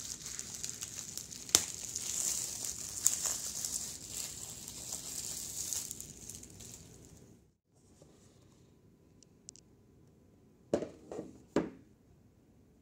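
Clear plastic wrap crinkling and crackling as it is torn and pulled off a laptop box, with sharp snaps. It cuts off suddenly, and a few soft bumps of the box being handled follow near the end.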